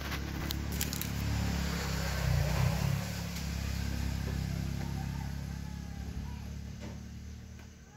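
A motor vehicle's engine passing by, growing louder to a peak about two and a half seconds in and then slowly fading away.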